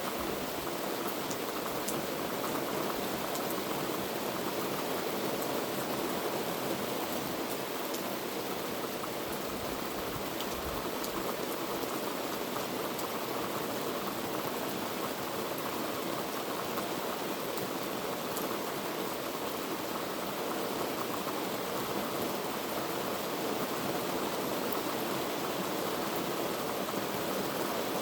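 Heavy rain falling steadily, with a few faint drop ticks.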